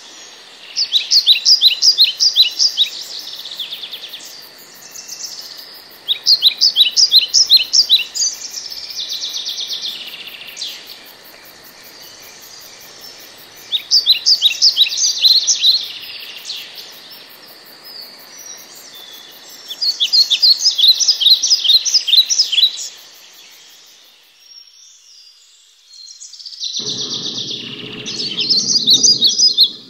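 A songbird repeats phrases of rapid, evenly spaced high chirps, each two to three seconds long, about every six seconds over a faint steady hiss. Near the end a low steady hum comes in under more chirping.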